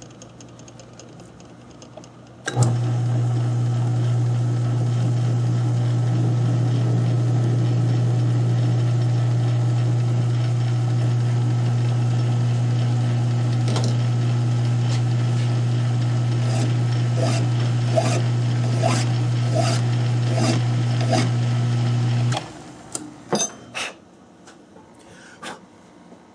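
South Bend lathe's electric motor switched on, running with a steady hum for about twenty seconds, then switched off. A run of light clicks and ticks comes over the hum in its last several seconds, and a few knocks follow after it stops.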